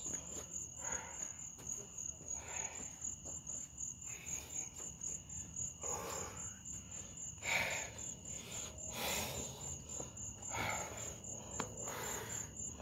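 Crickets chirping in a steady, rapidly pulsed high trill, with several short soft rushes of noise a second or two apart.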